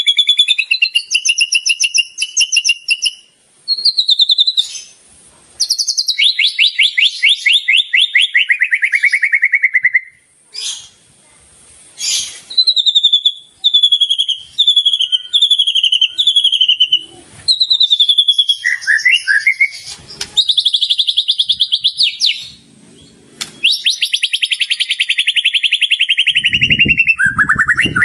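White-rumped shama (murai batu) singing continuously in full song, delivering its repertoire of mimicked phrases: fast rattling trills, high whistles and a run of about six quick falling notes, roughly two a second, near the middle.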